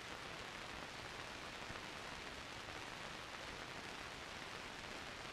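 Steady hiss of an old film soundtrack's noise floor, with nothing else standing out.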